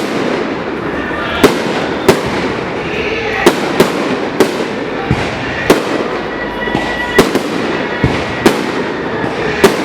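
Fireworks going off: about nine sharp bangs, roughly one a second, over a continuous crackle, with a brief whistle near the middle.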